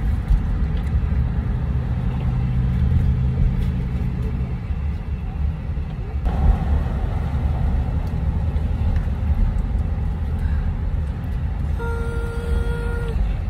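Steady low rumble of a parked car idling with the air conditioning on, heard from inside the cabin. Near the end a short steady tone with a couple of overtones sounds for about a second.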